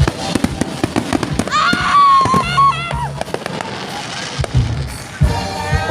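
Fireworks going off: a dense run of sharp crackling pops and bangs throughout.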